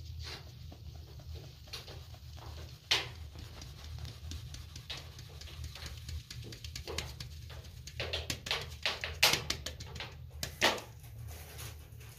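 Flour being sifted: a round sieve shaken by hand over an enamel tray, giving irregular knocks and scratchy rattling, with one sharp knock about three seconds in and a busy run of knocks from about eight to eleven seconds, over a steady low hum.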